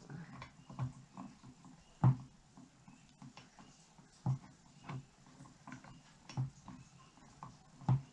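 Scattered light clicks and knocks of metal parts being handled as a cotter pin is worked down through the holes of the spreader and its mount. The sharpest knock comes about two seconds in.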